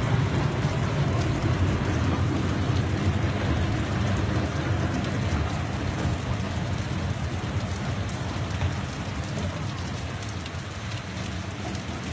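Heavy rain pouring down on a street, over a strong low rumble that slowly eases off.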